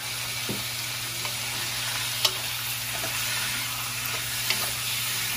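Cubed raw pork sizzling in hot oil in a metal wok with garlic and onion, being browned. A wooden spatula stirs it and knocks against the wok a few times.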